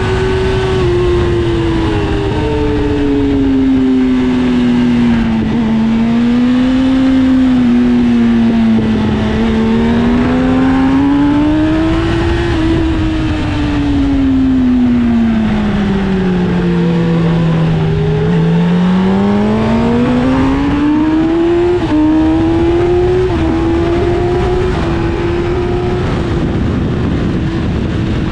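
Sport bike's inline-four engine at speed on a track: its pitch rises and falls through long sweeps as the rider accelerates and rolls off into corners, with a couple of quick shift steps about three quarters of the way in. Steady wind rush runs underneath.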